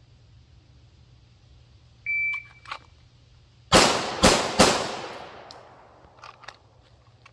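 A shot timer's start beep, then three 9mm pistol shots from a PSA Dagger, about half a second apart, each followed by a fading echo. The last shot lands about two and a half seconds after the beep.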